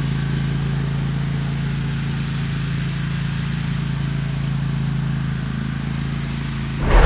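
Concrete truck engine running steadily at idle, a low even drone. Near the end a sudden loud crash-like noise cuts in.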